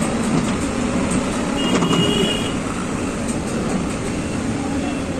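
LiuGong hydraulic excavator's diesel engine running steadily under load as the arm and bucket dig soil, mixed with road traffic. A brief high-pitched whine comes about two seconds in.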